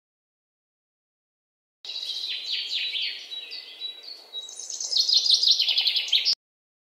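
Small birds chirping, a quick run of repeated falling notes with a short whistle among them, growing loudest near the end. It starts abruptly about two seconds in and cuts off sharply a little after six seconds.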